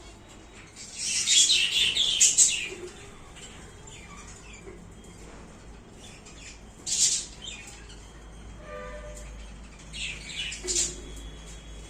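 Budgerigars squawking in harsh, high-pitched bursts: a long flurry about a second in, a short one around seven seconds, and another near the end, the squabbling of budgies fighting over a clay nest pot.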